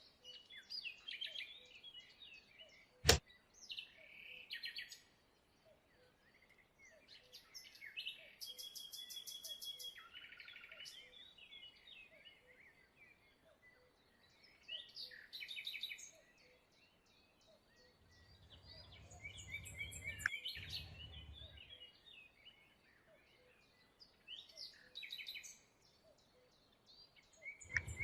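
Small birds chirping and trilling in short repeated phrases, with a single sharp click about three seconds in and a brief low hum a little after the middle.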